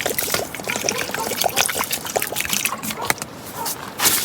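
Basmati rice and peas being washed by hand in water: water trickling and sloshing, with many small splashes.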